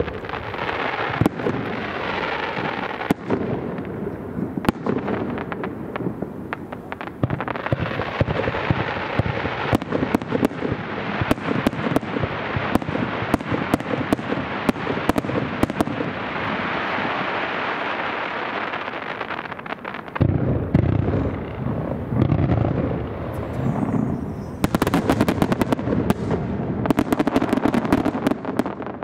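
Aerial firework shells bursting in quick succession with continuous crackling, sharp reports following one another throughout. Deeper booms come about two-thirds through, and a dense run of sharp cracks comes near the end.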